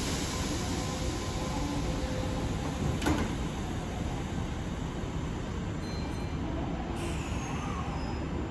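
Kintetsu local train standing at the platform before departure, its equipment humming steadily. A single knock about three seconds in, typical of the sliding doors shutting, and a higher hiss comes in about seven seconds in.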